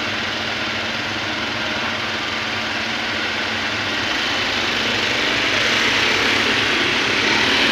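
Heavy diesel engine running steadily, growing a little louder about four seconds in.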